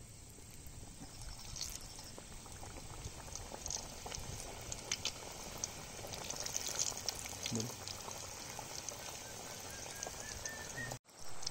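Samosas deep-frying in hot oil: a steady sizzle and bubbling with many small crackles and pops, growing a little busier as it goes.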